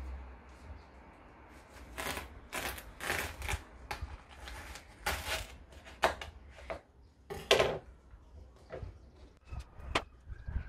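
Kitchen knife cutting through a whole watermelon on a wooden cutting board: a run of short crunching and knocking sounds as the blade works through the rind, with the loudest knock about seven and a half seconds in as the melon comes apart into halves and they are handled on the board.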